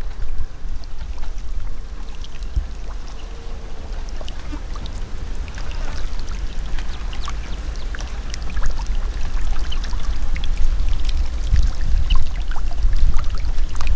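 Water sloshing and trickling, with many small scattered splashes, over a low, uneven wind rumble on the microphone that grows louder toward the end.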